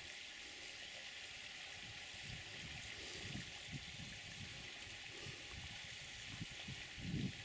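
Steady outdoor hiss at a waterhole, with irregular low rumbling puffs starting about two seconds in and growing stronger near the end.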